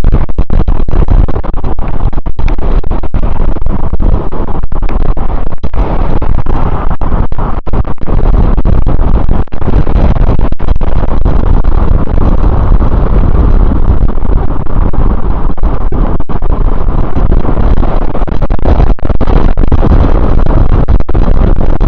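Wind buffeting the camera microphone on an e-bike moving at speed: a loud, continuous rushing roar, broken by many brief dropouts.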